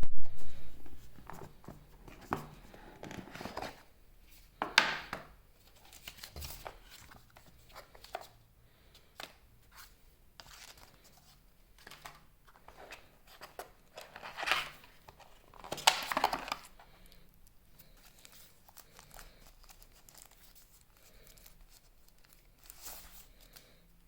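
A phone's packaging being opened by hand: wrapping tearing and crinkling in irregular bursts, loudest right at the start and again about a third and two thirds of the way through.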